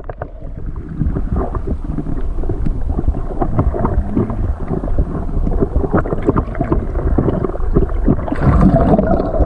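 Muffled water sound heard through an action camera held under the lake surface: a dense low rumble of sloshing water with many small clicks and knocks against the housing, getting louder and brighter near the end.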